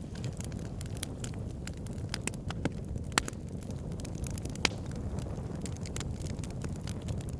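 Fire crackling, with irregular sharp pops over a low steady rumble; a few louder pops stand out about two, three and four and a half seconds in.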